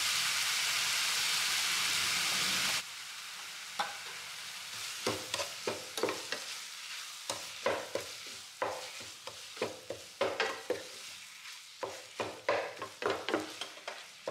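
Minced pork sizzling in a nonstick frying pan: a steady hiss that cuts off suddenly about three seconds in. After that a wooden spatula stirs and scrapes the meat around the pan with quick, irregular knocks over a quieter sizzle, as the pork is stir-fried until cooked.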